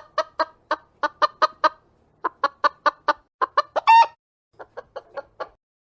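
Hen clucking in quick runs of short clucks, about four or five a second, with one higher rising squawk about four seconds in and softer clucks near the end.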